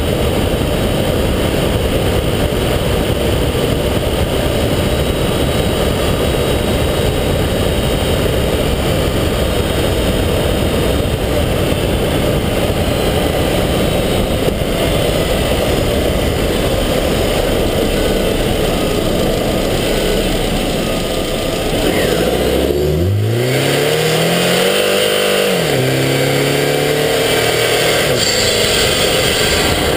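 Subaru Forester XT's turbocharged flat-four engine heard from inside the engine bay, under a loud, steady roar of wind and road noise. About 22 seconds in, the engine note climbs, then drops back and settles at a lower pitch.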